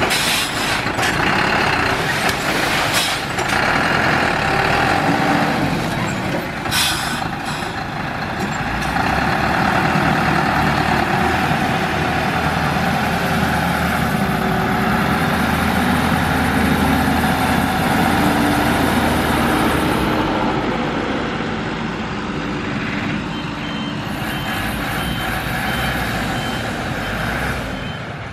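Dump truck's diesel engine running loudly as it tips its load of soil and then drives away, with a couple of sharp knocks in the first seconds. Near the end a reversing beeper repeats steadily.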